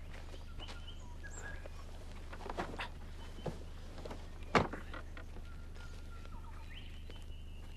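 Birds chirping with short whistled notes and glides over a steady low hum of outdoor ambience. A few light knocks and one sharp knock about four and a half seconds in, as things are loaded onto a wooden wagon.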